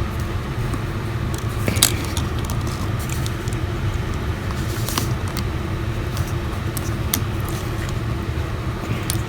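Steady low background hum with a few faint clicks and taps from small tools and parts being handled while a phone battery connector is pressed onto its socket.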